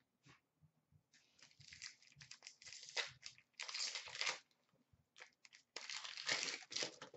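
An Upper Deck Series 2 hockey card pack being torn open by hand, its wrapper crinkling and tearing in three noisy bursts.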